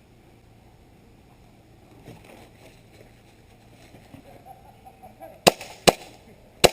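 Airsoft pistol firing three sharp shots near the end: two about half a second apart, then a third under a second later.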